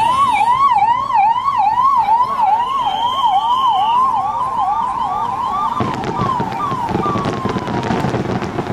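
Vehicle siren in fast yelp mode, sweeping up and down about three times a second, with a brief higher steady tone partway through. About six seconds in it breaks off into a slow falling tone under a rush of louder crowd and traffic noise.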